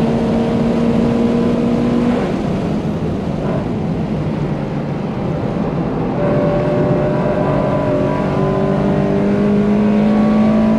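Subaru BRZ's flat-four boxer engine with a catless exhaust and aftermarket header, heard from inside the cabin on track. It holds high revs at full throttle, then lets off about two seconds in for braking into a corner. From about six seconds in it pulls hard back up through the revs, its pitch rising steadily.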